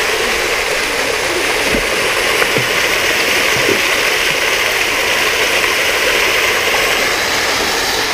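Water from a column fountain pouring down into a shallow splash pool: a steady, even splashing of falling water.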